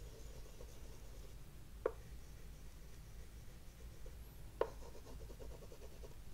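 Oil pastel stick scratching and rubbing on a black gesso-primed wooden board in small strokes. There are two light taps, about two seconds and four and a half seconds in, and the second is followed by a quick run of short strokes.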